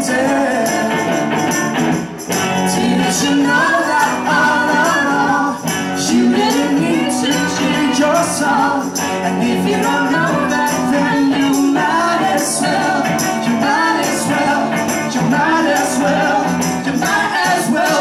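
Live band music: an electric guitar strummed, a tambourine shaken in rhythm, and voices singing a melody over it.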